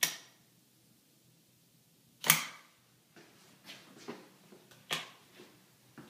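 A sharp click as a small hobby motor module flips a wall light switch, turning the light off. About two seconds later comes a louder knock, then a run of softer clicks and rustles with another sharp click near the end.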